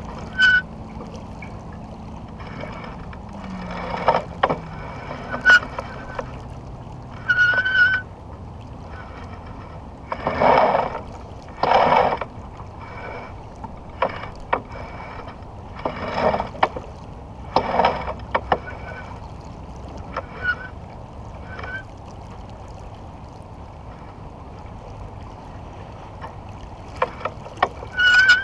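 Steady rush of water along a sailboat's hull under spinnaker, with about ten short high squeaks and a few louder rushing bursts.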